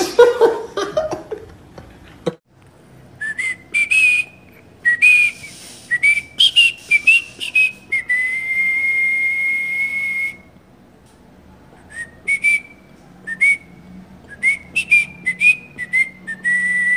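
A person whistling: a string of short, quickly rising whistled notes, then one long held note. After a pause come more short notes and another held note near the end.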